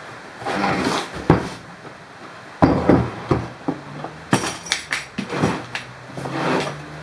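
Hard plastic tool case handled on a workbench: it is knocked and shuffled about, its front latches are snapped open with a quick run of sharp clicks about four seconds in, and the lid is swung open.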